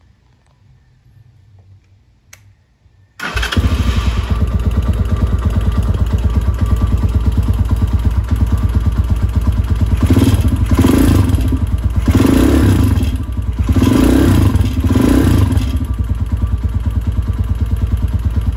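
Tao Tao TBR7 250cc dirt bike engine starting about three seconds in, catching at once and idling with an even, rapid chug. It is blipped four times in quick succession, then drops back to idle. Sounds awful.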